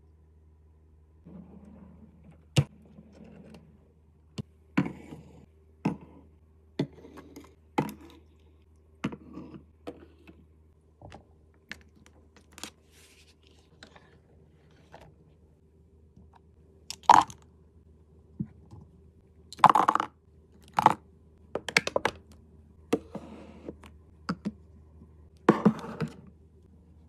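Cosmetic items and plastic organizers being handled and set down on a vanity desk: a string of separate clicks, knocks and short scrapes at irregular spacing, the loudest ones in a cluster about two-thirds of the way through, over a faint steady low hum.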